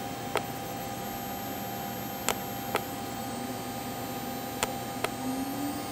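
Laguna IQ CNC router's electric spindle running with a steady hum while its speed is stepped with the controller buttons, with a few short clicks along the way. Its pitch rises in the second half as the spindle speeds up to about 18,000 RPM.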